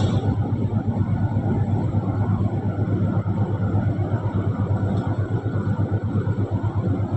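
Vertical roller mill in a cement plant running: a steady, deep, heavy rumble that does not change.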